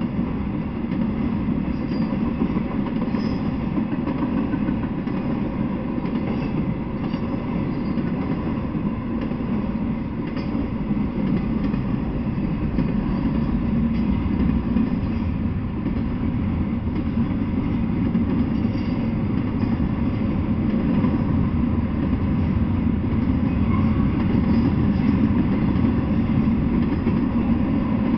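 Intermodal freight train cars rolling past, a steady low noise of steel wheels running on the rails.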